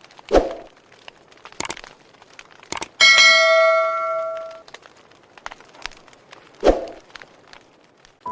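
A bell struck once about three seconds in, ringing with several steady tones and fading over about a second and a half. A few short, sharp sounds come before and after it.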